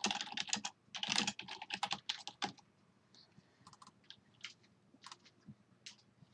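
Typing on a computer keyboard: a quick run of keystrokes over the first two and a half seconds, then a few scattered single clicks.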